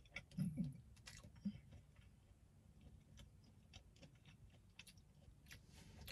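A person chewing food with the mouth close to the microphone, soft wet clicks and smacks scattered throughout, and a brief low hum about half a second in.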